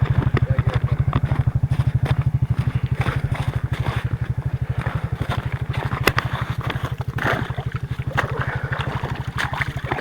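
A small engine idling with a fast, even chug, with a few light knocks and rustles over it, one sharp click about six seconds in.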